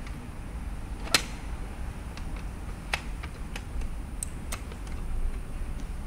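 Metal letterbox door swung shut, catching with a sharp click about a second in, then several lighter clicks and taps, over a steady low rumble.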